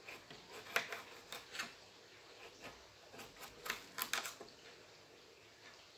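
Kitchen knife slicing a cucumber into thin rounds, its blade faintly tapping the cutting board in scattered, irregular clicks.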